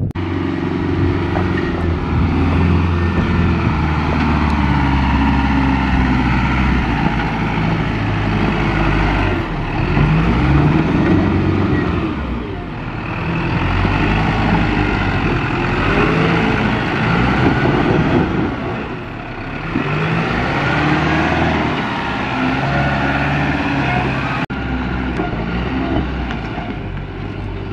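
Engines of four-wheel-drive vehicles working hard up a steep, loose rocky climb: first the Ford Ranger ute, then the Isuzu NPS 4x4 truck's turbo-diesel. The engine note is steady under load, with revs rising and falling through the middle.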